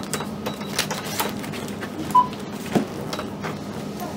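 Scattered clicks and taps at a supermarket checkout register during a refund, with one short electronic beep about two seconds in.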